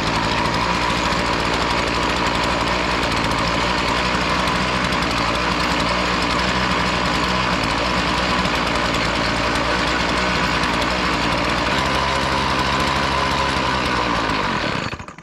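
Small gasoline engine of a walk-behind lawn edger running steadily on half choke, then stopping suddenly near the end. The engine dies when given full throttle, which the owner thinks may just need a carburettor adjustment.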